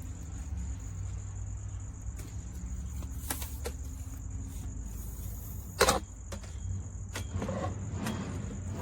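Handling noise from a plastic selfie-stick tripod: a few light clicks and one sharp knock about six seconds in, over a steady low hum and a faint high whine.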